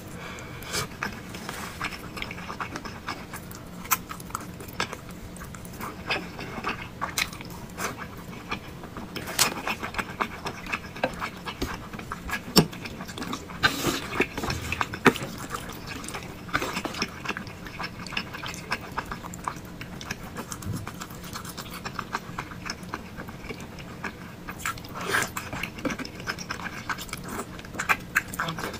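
Close-up eating sounds of thick noodles with meatballs: irregular wet chewing, smacking and mouth clicks, with a few louder smacks around the middle.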